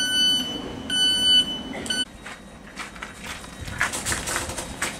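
Train door-closing warning beeps: two steady high-pitched beeps of about half a second each and a brief third about two seconds in, followed by rattling and clatter.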